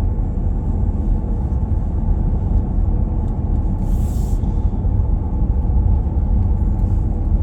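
Steady low road rumble inside a moving vehicle's cabin: engine and tyres on the highway, with a brief hiss about four seconds in.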